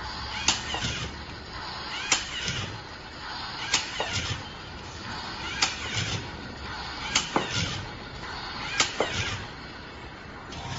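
Shooting mechanism of a home-made remote-control toy car firing: a sharp snap about every one and a half seconds, several followed quickly by a second click, over a steady low whir.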